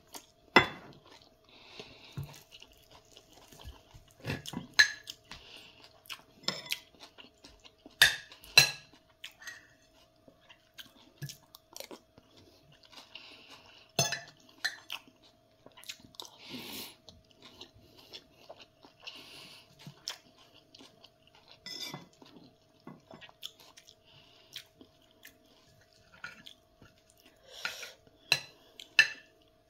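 Metal fork and spoon clinking and scraping against a plate in sharp, irregular clicks, with close-up chewing and mouth sounds between them. A faint steady hum runs underneath.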